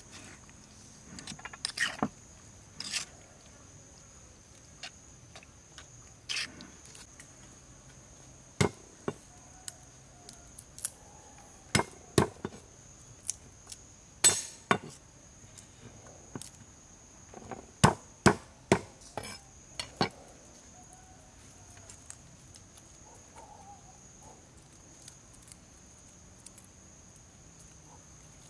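Irregular sharp knocks and taps on a wooden board as a garlic bulb is broken into cloves and peeled, heaviest in the middle and lighter near the end. A metal spoon taps a stone bowl at the start. A steady high-pitched insect buzz runs behind it.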